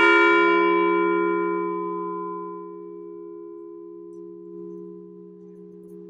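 A large memorial bell struck once, tolling for a veteran whose name has just been read. The single toll rings out loud and slowly dies away, with a low hum lingering to the end.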